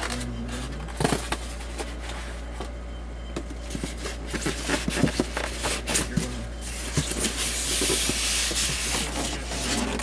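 Cardboard box and its packing being handled during unpacking: scattered knocks and scrapes, with a stretch of rustling from about seven seconds in.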